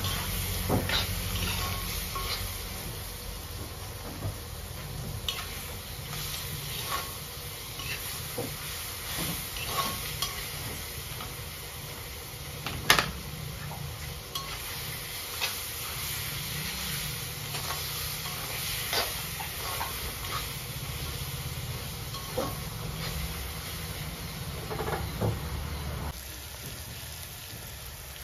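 Pork pieces sizzling as they fry in an iron wok, stirred with a spatula that scrapes and knocks against the pan now and then. One sharp knock about 13 seconds in is the loudest.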